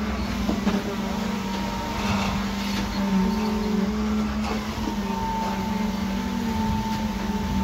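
Steady machine hum with a fainter high whine that comes and goes.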